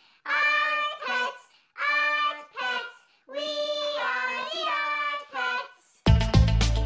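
A high voice sings a short theme-song jingle in a few held phrases with no backing. About six seconds in, upbeat electronic music with a steady beat cuts in abruptly.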